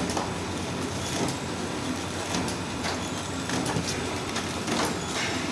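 Horizontal flow wrap packing machine running as it wraps stick ice cream bars: a steady mechanical clatter with a sharp knock roughly every second.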